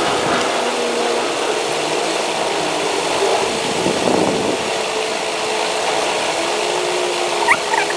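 Steady background noise: an even hiss with faint, slightly wavering hum tones underneath, and a few short high squeaks near the end.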